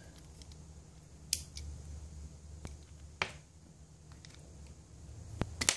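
Small hard plastic clicks and taps as nylon RC transmission gears are handled by hand: a sharp click about a second in, another about three seconds in, and a quick cluster near the end, over a low steady hum.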